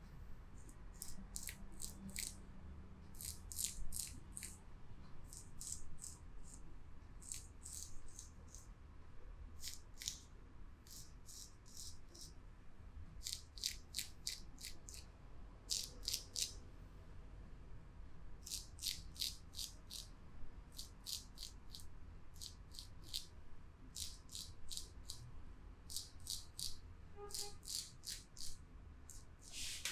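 Short, close-up rustling scrapes in quick runs of two to five strokes with pauses between, over a faint steady low hum.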